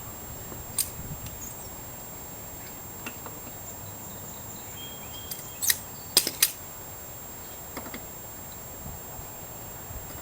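A handful of sharp clicks and clacks over steady hiss, the loudest a quick cluster of three about six seconds in; the motorcycle's engine is not running, between cold-start attempts.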